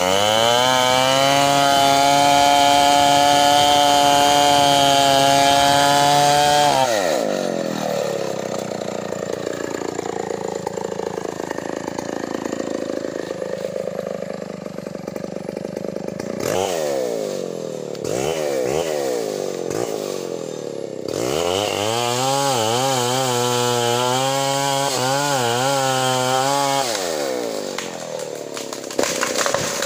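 Stihl 070 two-stroke chainsaw cutting into the base of a large standing tree at full throttle. About seven seconds in it drops back toward idle, gives a few short revs, then cuts again at full throttle, the pitch wavering under load, before dropping back near the end.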